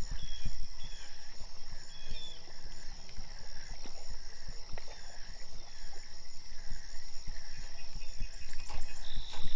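Insects calling: a steady high-pitched buzz, with a second pulsing call about one and a half times a second, over a low rumble.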